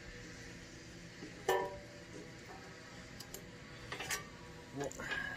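Socket ratchet working the work-table bolts on an electric log splitter: a few scattered metallic clicks and clinks. The loudest clink comes about a second and a half in, with more near the end.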